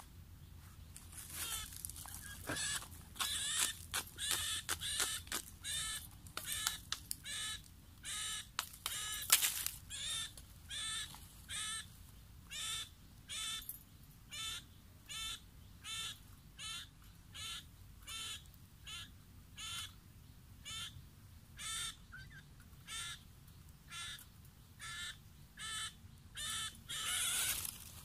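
An animal calling over and over, each short call wavering in pitch; the calls come quickly and unevenly for the first few seconds, then settle to about one a second. A brief rustling burst comes near the end.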